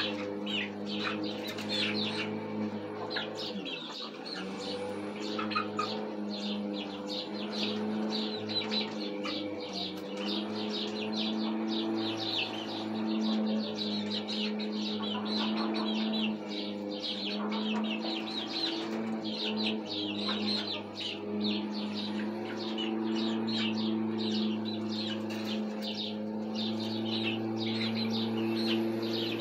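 Young chickens on the roost peeping: many short, high calls in quick succession throughout, over a steady low hum.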